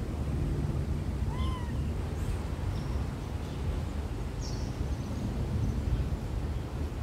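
A single short animal call that rises and falls in pitch, about a second and a half in, over a steady low rumble.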